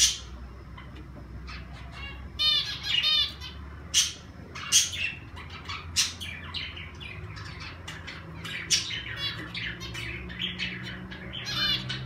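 Mixed aviary flock of cockatiels, budgies and zebra finches chirping and calling: a string of short sharp chirps and quick repeated calls, a few of them loud. A low steady hum comes in over the last few seconds.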